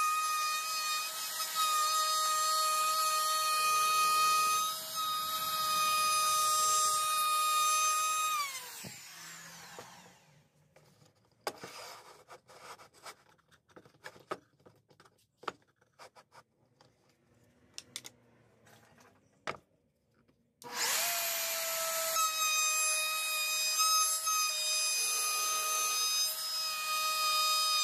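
Handheld router with a round-over bit running at speed and cutting the edges of a wooden drawer box, a steady high whine. About nine seconds in it is switched off and winds down with a falling whine, followed by quiet handling clicks and knocks. About 21 seconds in it starts up again and runs steadily.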